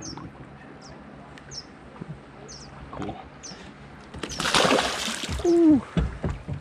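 A catfish splashes into lake water as it is released over the side of a boat, a loud rush about four seconds in, followed by a short falling vocal exclamation from a man. Faint high bird chirps repeat every second or so throughout.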